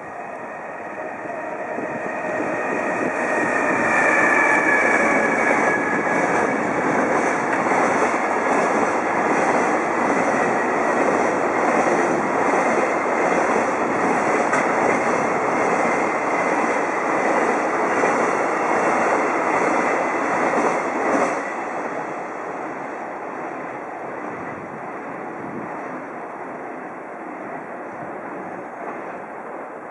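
JR Freight EF66 electric locomotive and container wagons passing through at speed, with rail-joint clickety-clack repeating steadily. The sound builds over the first few seconds, and a whine falls in pitch as the locomotive goes by. About two-thirds of the way through the level drops suddenly, leaving a weaker rumble.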